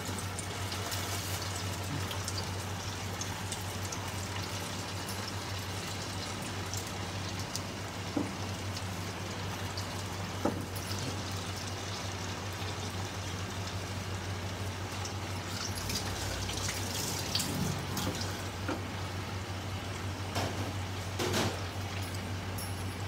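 Sago (sabudana) vadas deep-frying in a kadai of hot fat, a steady bubbling sizzle, with a low steady hum underneath and a few faint clicks.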